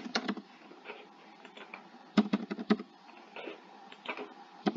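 Computer keyboard typing: short runs of quick keystrokes near the start, about two seconds in and again near the end, with quiet pauses between.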